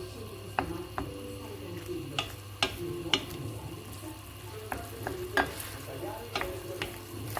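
A utensil stirring food in a sizzling pan, clinking against the pan about ten times at an uneven pace, each knock ringing briefly.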